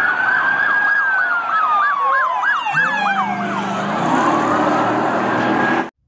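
Police car sirens sounding together: a slow rising and falling wail, with a fast yelp of quick repeated sweeps for a couple of seconds in the middle. A low steady drone joins a little under halfway through.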